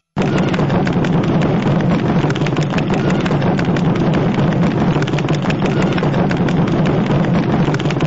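A string of firecrackers going off in a dense, continuous crackle of cracks and pops, starting abruptly just after the start.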